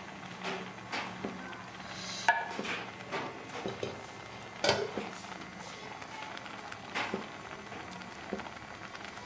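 A pot of eel and banana-flower stew simmering, its milky broth bubbling with irregular small pops. A few sharper clinks and knocks come through, the loudest about two and five seconds in, and a metal spoon stirs the pot near the end.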